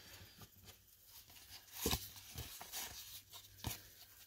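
Cardboard baseball cards being handled and slid through in the hands: faint rustling with a few soft card-on-card taps, about two seconds in and again near the end.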